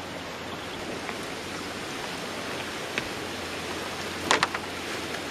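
Steady rush of fast-flowing white water on a river. A sharp knock sounds about three seconds in, and a louder double knock a little after four seconds.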